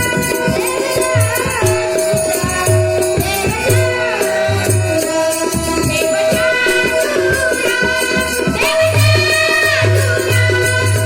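Marathi devotional bhajan: a child's singing voice gliding over a held harmonium note, with low drum beats and a steady jingling, shaker-like percussion.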